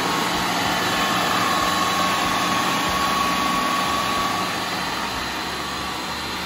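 Food processor motor running steadily, blending chopped vegetables and olive oil into a paste: a steady whir with a thin whine over it, easing off a little near the end.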